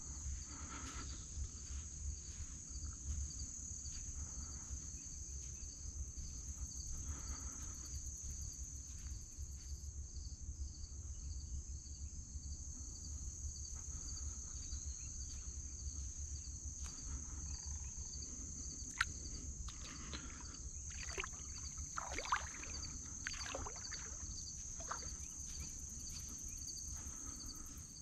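Steady high-pitched chorus of trilling insects such as crickets, over a low rumble. A few sharp clicks and several swishing, falling sounds come in the second half.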